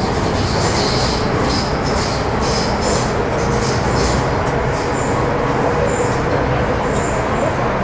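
Inside a Metro-Cammell M-Train electric multiple unit, with its GEC GTO chopper traction, running at speed through the tunnel: a steady rumble of wheels and motors under a faint steady whine, with short high-pitched squeaks or squeals recurring about every half second to second.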